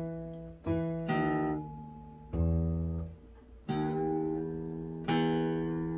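Taylor GS Mini-e Rosewood steel-string acoustic guitar being tuned: single strings plucked one at a time, about six times, each left to ring out. The guitar arrived out of tune from shipping.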